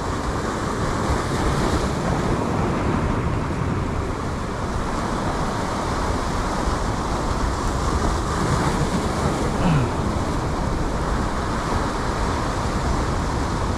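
Sea waves washing against rocks, with wind on the microphone, as a steady noise without a break.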